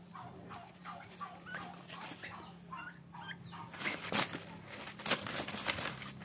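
Poultry clucking in short repeated calls, about three a second. From about four seconds in, these give way to several sharp rustles and crackles from leafy branches being shaken.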